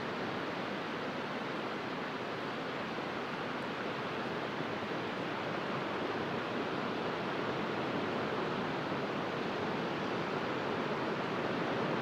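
Low sea waves breaking and washing over a flat sandy beach: a steady surf hiss that swells slightly toward the end.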